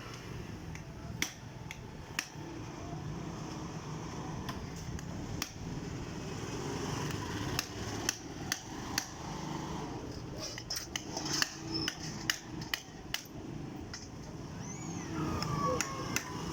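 Hand tools knocking and tapping: irregular sharp strikes, bunched most thickly in the middle stretch, over a steady low background rumble.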